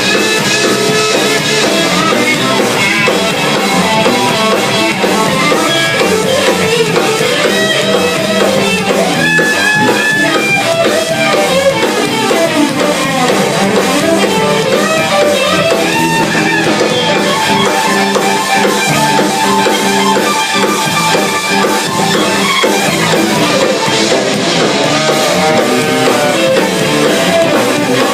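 A live band jamming: guitar and drum kit playing continuously.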